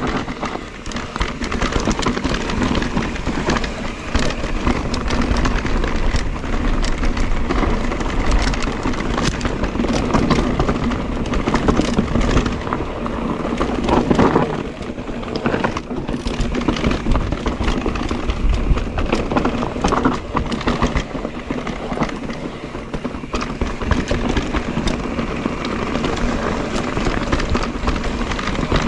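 Mondraker Crafty electric mountain bike ridden over rough trail: tyres crunching over loose stones, with constant small rattles and knocks from the bike and a faint steady hum underneath.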